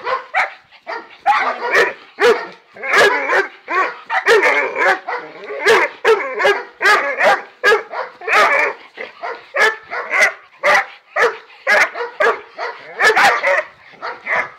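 Dogs barking repeatedly in play, short sharp barks coming about twice a second without a break.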